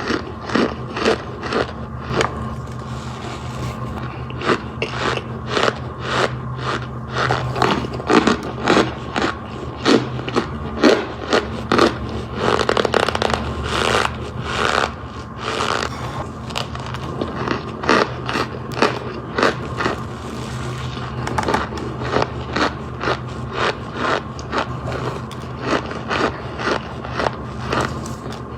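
Freeze-dried marshmallows being crunched: a long run of crisp, crackly crunches, about two to three a second, with a denser flurry about halfway through.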